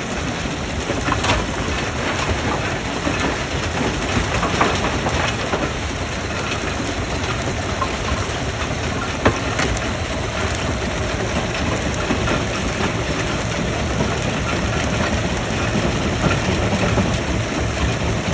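Stone crusher running, with a dense clatter and cracking of rock being broken over a steady low rumble. One sharp crack stands out about nine seconds in.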